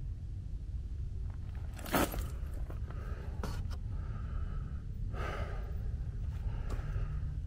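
Low, steady rumble of wind on the microphone, with a short sharp noise about two seconds in, a lighter one a second and a half later, and a breathy rush about five seconds in.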